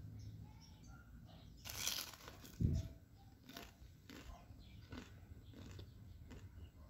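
A short crisp crunch of a fried lumpia wrapper breaking, followed about half a second later by a single dull thump, the loudest sound here. A few faint clicks follow.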